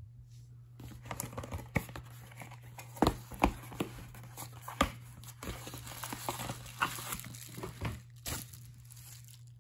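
Cardboard mailer box being opened by hand: tearing, rustling and sharp snaps of the cardboard flaps, with a few louder cracks among them, over a steady low hum.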